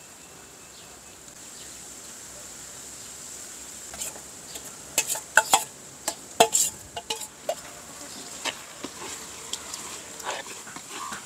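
Metal ladle clinking and scraping against a wok and a metal bowl as small fish are tipped into chili paste and stirred. The clinks start about four seconds in and come thickest a second or two later, over a low steady hiss.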